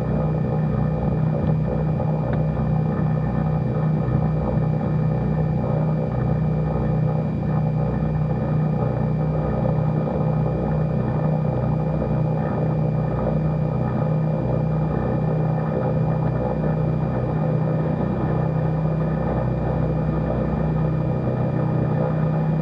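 Cessna 310's twin piston engines and propellers running at low taxi power, heard inside the cabin as a steady drone that wavers slightly.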